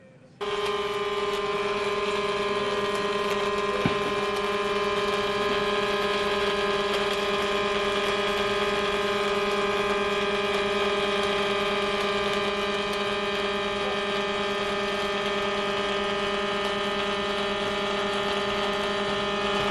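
Automatic pipeline welding equipment running during a pipe weld: a steady mechanical hum at one constant pitch, with a single click about four seconds in.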